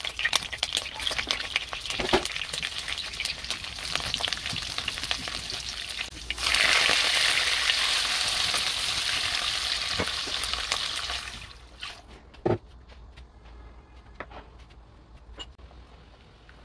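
Hot oil sizzling in a non-stick wok as sardines fry and are stirred and scraped with a spatula, with scattered clicks. The sizzle gets louder about six seconds in and dies down at about twelve seconds, leaving only faint clicks and knocks.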